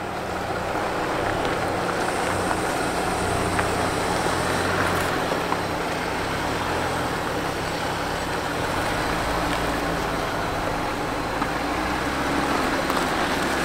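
A 2020 Jeep Gladiator Rubicon's 3.6-litre V6 running at a slow crawl as the truck creeps down a steep, rutted descent. The engine note is steady and low, with faint scattered clicks of the tyres working over dirt and rock.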